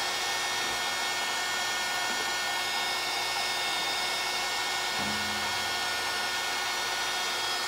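Handheld craft heat gun running steadily, blowing hot air onto a sticker on a ceramic bowl to soften its adhesive: an even rush of air with a thin steady motor whine.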